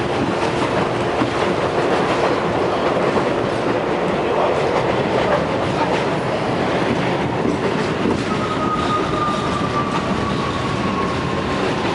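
New York City subway train running on elevated track, heard from inside the car: a steady, loud noise of wheels on rails and the moving car. About eight seconds in, a thin whine starts and slowly falls in pitch.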